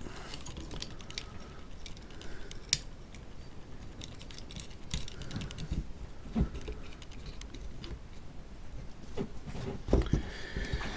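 Hands handling and fitting together the frame arms and brushless motors of a two-axis camera gimbal: scattered small clicks, taps and rattles of the parts, with a couple of dull knocks, one midway and one near the end.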